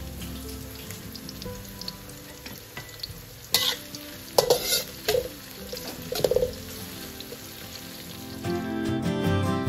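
Sliced shallots sizzling in oil in a metal wok, stirred with a metal spatula that scrapes and clanks against the wok several times in the middle.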